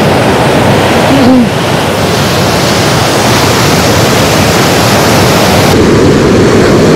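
Sea surf rushing steadily on the shoreline at high tide, a loud, even wash of noise that turns duller about six seconds in.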